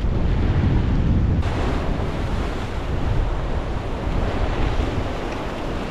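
Ocean surf washing in, with wind buffeting the microphone as a low rumble.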